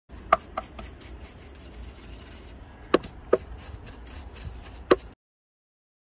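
A handful of sharp knocks, about six, spaced unevenly over a low steady rumble and hiss. The sound starts abruptly just after the beginning and cuts off abruptly about five seconds in.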